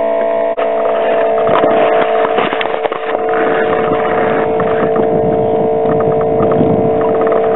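Webasto diesel-fired pre-heater on a winterised Sno-Cat running with a steady whine while it warms the diesel engine. Irregular rustling noise lies over it.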